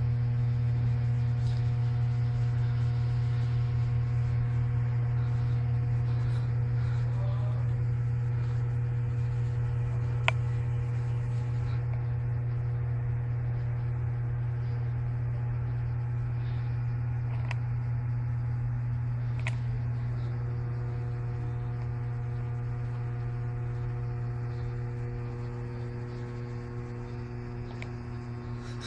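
A steady low electrical-sounding hum with a few faint overtones, broken by a few short clicks, one a little louder about ten seconds in.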